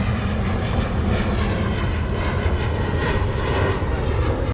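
A loud, steady, low-pitched engine drone that cuts off abruptly at the end.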